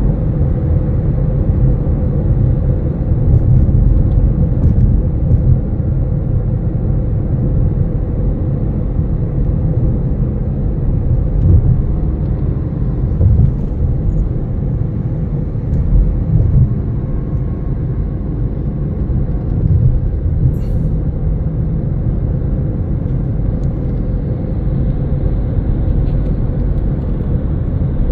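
Steady low rumble of airliner cabin noise inside an Airbus A321neo, with a faint steady hum over it.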